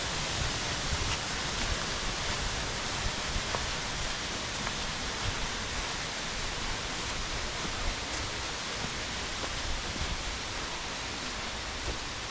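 Feather Hawk Falls, a waterfall, roaring steadily up close: an even, unbroken rush of falling water.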